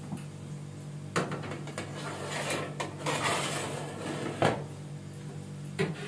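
Baking tray knocking and scraping as it is slid onto the oven rack, with a loud clank about four and a half seconds in, then a clunk near the end as the oven door is pushed shut.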